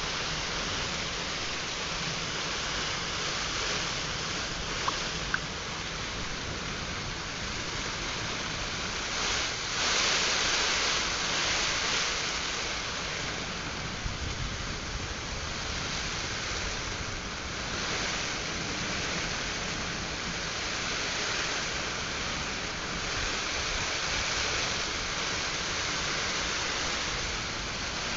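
Heavy rain of a nor'wester thunderstorm pouring steadily, swelling louder for a couple of seconds about ten seconds in. Two sharp ticks about five seconds in.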